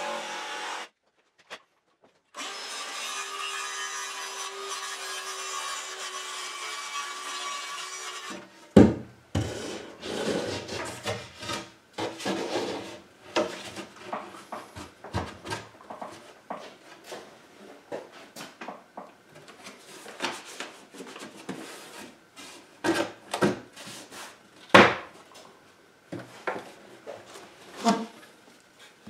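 A power saw cutting through plywood in a steady run, broken briefly about a second in and stopping about eight seconds in. It is followed by irregular wooden knocks, bumps and scrapes as a plywood panel is handled and fitted into a wooden frame, the sharpest knocks coming about nine and twenty-five seconds in.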